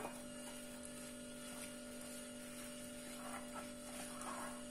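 A steady low electrical hum, with faint soft sounds of a hand working lumpy flour-and-curd jalebi batter in a glass bowl. The hand sounds come a little more often about three to four and a half seconds in.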